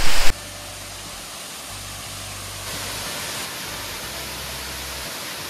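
Waterfall: the steady, even rush of water falling from a height onto rock.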